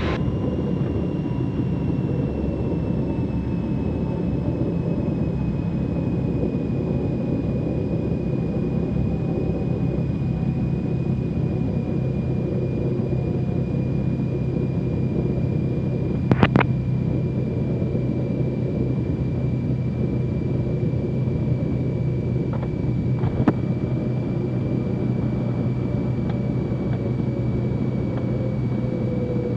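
Cessna 310Q's twin engines running at low power after touchdown: a steady drone with faint whining tones that fall slowly in pitch as the plane rolls out. A brief crackle sounds about halfway through.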